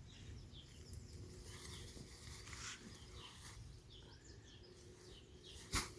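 Faint bird chirps over a low steady background hum, with one sharp knock near the end.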